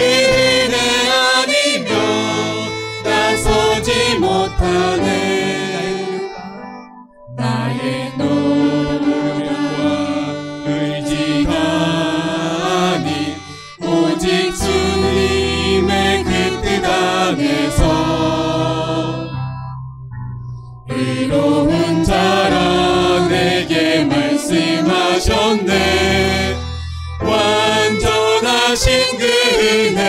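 A small worship team singing a Korean-language contemporary praise song together, men's and women's voices, to violin and keyboard accompaniment. The music pauses briefly twice, at phrase breaks.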